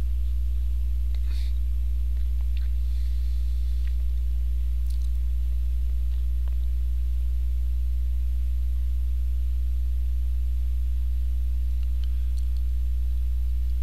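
Steady low electrical mains hum with a few weaker steady tones above it, unchanging throughout. A few faint clicks come in the first several seconds.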